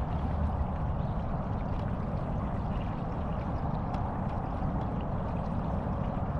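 Steady low rumble of water and wind around a small fishing boat creeping along under an electric trolling motor.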